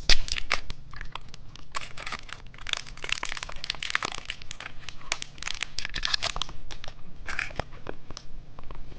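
Plastic candy wrapping crinkling and tearing in the hands as a surprise-egg candy package is opened, with many small irregular crackles and clicks.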